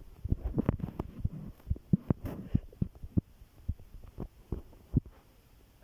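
Irregular soft thumps and clicks, several a second, thinning out near the end.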